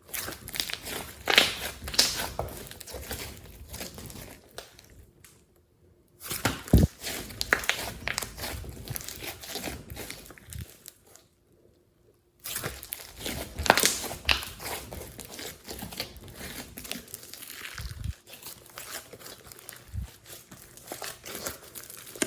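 Glossy slime being squished, poked and stretched by hand: a dense run of wet clicks and crackling pops. It comes in three stretches, each broken off by a brief silence.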